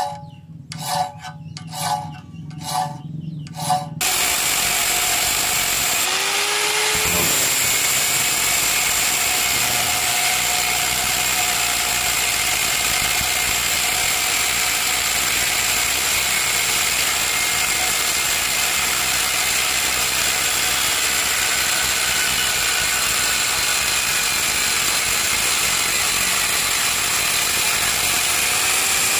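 A hand file scrapes in a few even strokes across a small steel crescent clamped in a vise. About four seconds in, an angle grinder's cutting disc takes over, cutting steadily into a bar of truck spring steel, with a high whine over a loud grinding hiss.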